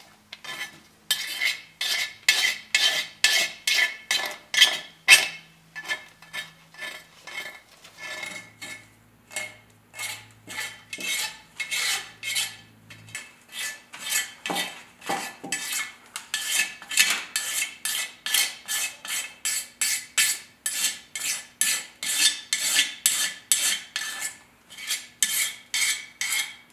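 Razor blade scraping old RTV gasket maker off a stamped-steel differential cover in quick repeated strokes, about two to three a second.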